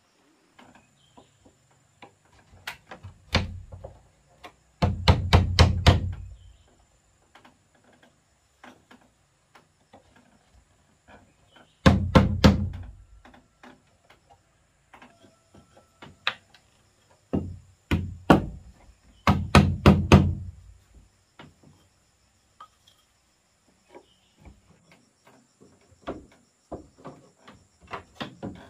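Wooden slats being knocked into a wooden railing frame with a hand-held wooden block: sharp wood-on-wood knocks, coming in quick runs of five or six strikes with single knocks in between.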